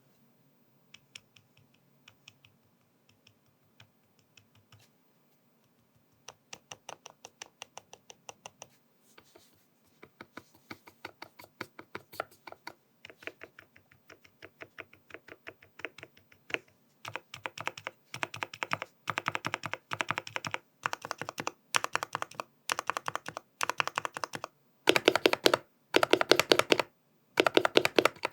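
Typing on a GMMK Pro custom keyboard with stock Gateron North Pole linear switches, a tape-modded build with switch pads and Cherry-profile PBT keycaps. A few scattered keystrokes come first, then steady typing from about six seconds in, which grows faster and louder in the second half and breaks into bursts with short pauses near the end.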